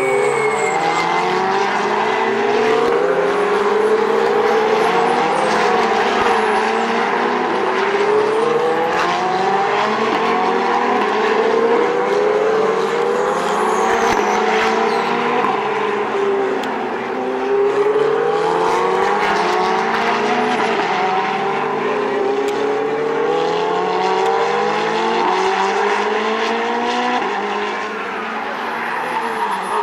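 Ferrari 458/488 Challenge race cars' V8 engines at full throttle on track, the engine note repeatedly climbing through the gears and dropping back at each shift. Several cars are heard at once, their notes overlapping, loud throughout.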